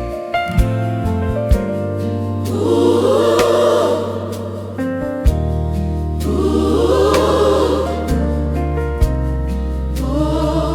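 Gospel music: a choir singing in swells over sustained chords and a steady bass line, with a few sharp drum hits.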